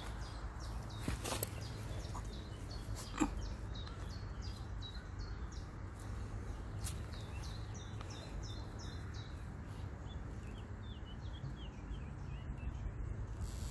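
Small birds singing in quick series of short, high falling notes, over a steady low outdoor rumble, with a couple of sharp knocks about one and three seconds in.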